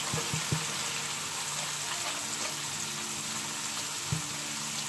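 Okra frying in hot ghee in a steel pot: a steady sizzling hiss. A few soft knocks near the start and once near the end as chopped onion, tomato and green chilli are tipped in from a plastic colander.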